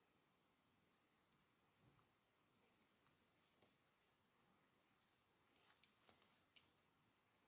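Faint, scattered clicks of a latch hook tool being worked through rug canvas, over near silence.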